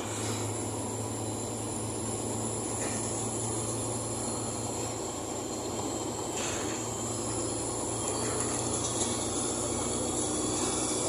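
Bus engine running with road rumble, heard from inside the moving bus, with a steady low hum and a thin high-pitched whine over it.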